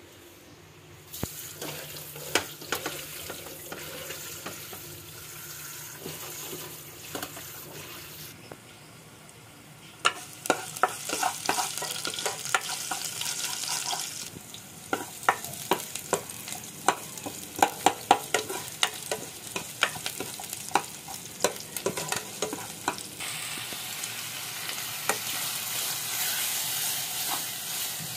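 Garlic, and then ground meat with onion, frying in oil in a small non-stick pan while a wooden spoon stirs, clicking and scraping against the pan. The first few seconds hold only scattered light clinks. The sizzle starts about ten seconds in and grows louder and steadier near the end.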